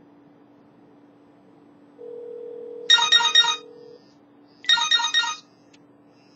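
Cell phone ringtone: short bursts of rapid electronic beeps, two in a row about two seconds apart and a third just starting, as the phone rings to an incoming call.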